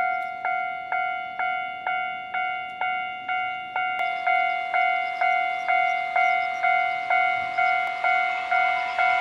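Japanese railway level-crossing alarm bell ringing its steady ding-ding about twice a second, a ringing tone struck over and over. From about halfway, the noise of an approaching Keihan train builds under it.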